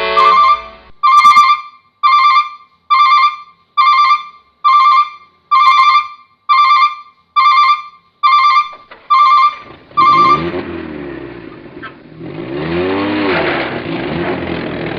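A string of about ten evenly spaced electronic beeps, a little faster than one a second. About ten seconds in, an engine starts running, its pitch rising and falling as it revs.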